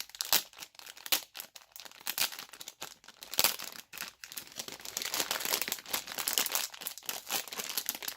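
Irregular crinkling and crackling of thin plastic packaging as soft squishy toys are handled.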